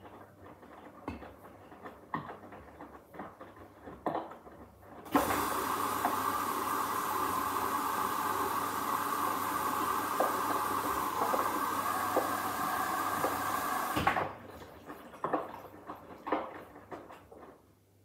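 Hoover H-Wash 300 Plus front-loading washing machine tumbling its load in the wash: the drum turns with sloshing water and soft knocks. About five seconds in, a loud steady rushing hiss, typical of the water inlet valve filling the drum, starts and cuts off suddenly about nine seconds later.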